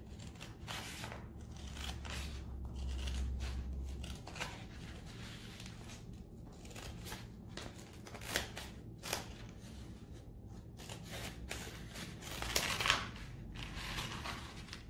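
Scissors snipping through a Redesign decor transfer sheet on its backing paper: a run of short, irregular cuts.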